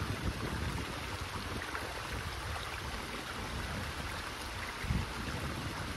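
Shallow stream running over rocks: a steady rush of flowing water. A low rumble sits beneath it and swells briefly about five seconds in.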